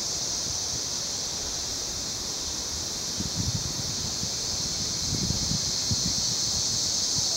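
Mantled howler monkeys roaring from the forest, low and pulsing, in two short bouts about three and five seconds in, over a steady high-pitched insect drone.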